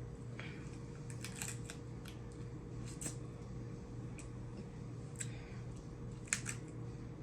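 Snow crab leg shells being cracked and snapped apart: a scattered run of sharp clicks and cracks, with a cluster about a second in and the loudest crack near the end, over a faint steady hum.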